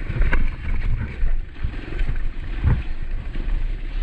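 Trail motorcycle riding, its engine buried under heavy low wind buffeting on the microphone, with a few short knocks.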